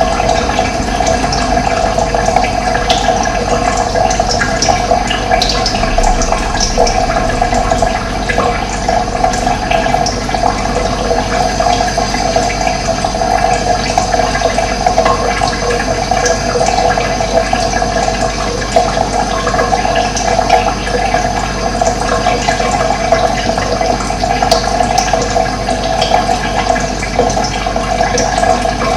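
Steady rush of running water, with occasional short bird chirps over it.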